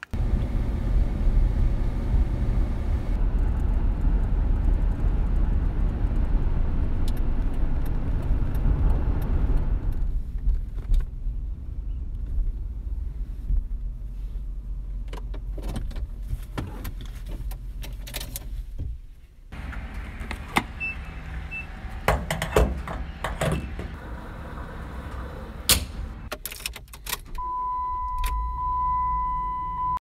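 Car: a steady low rumble of engine and road noise, then quieter running with many sharp clicks and knocks of keys and door handling. A steady high beep sounds for the last couple of seconds.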